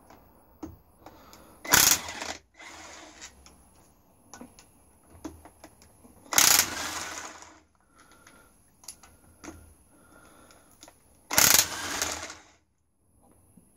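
Ratchet and socket undoing engine bolts: scattered ratchet clicks, with three louder rasping bursts about five seconds apart.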